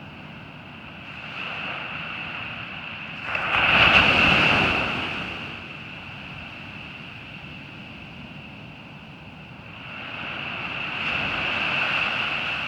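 Surf breaking on a beach. A wave crashes about three seconds in, rising sharply and fading over a couple of seconds, and another swells up more slowly near the end.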